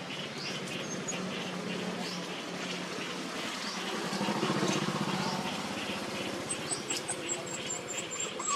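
An engine running, growing louder around the middle and fading after, over a regular chirping repeated a few times a second. A series of quick high chirps comes near the end.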